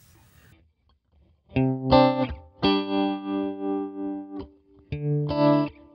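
Electric guitar chords played through a Jam Pedals Harmonious Monk harmonic tremolo pedal into the amp's own tremolo, set to imitate a rotating Leslie speaker. After about a second and a half of quiet come a few picked chords, one ringing for nearly two seconds with an even, pulsing wobble in volume.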